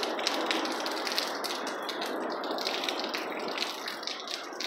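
Crickets chirping in quick repeated pulses over a steady rushing of rain during a night-time thunderstorm.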